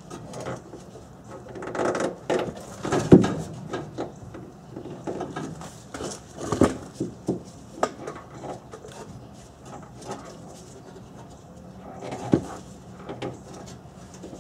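Irregular clunks, knocks and rubbing as a new exhaust muffler is handled and its rubber exhaust insulators are worked onto the hanger rods, with three louder knocks about three, six and a half and twelve seconds in.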